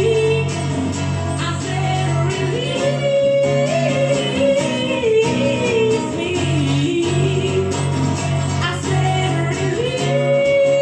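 Live acoustic music: a woman sings a melody with long held, bending notes over two strummed acoustic guitars.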